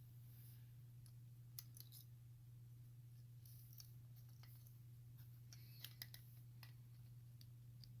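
Faint small clicks and taps of tweezers and small plastic parts, a few at a time, as the joystick's ribbon cable is worked into the Joy-Con connector, over a steady low hum.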